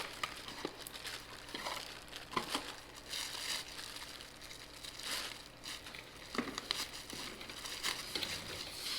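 Irregular rustling and crinkling with scattered light clicks and knocks, as of hands handling parts and tools during a driveline repair, over a faint steady hum.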